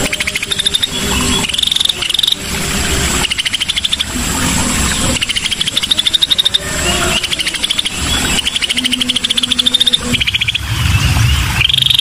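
Recorded cucak sisik (scaly-breasted bulbul) song, used as a lure track to set caged songbirds singing: a run of very fast, high trills, each about a second long and rising slightly in pitch, following one after another.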